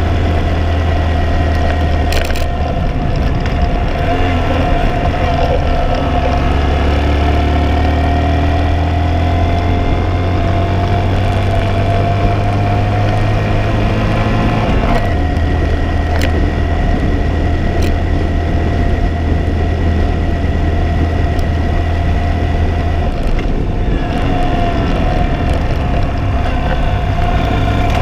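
Motorcycle engine running while riding along at road speed, heard on board with wind and road noise. The engine note changes twice, about halfway through and again later on.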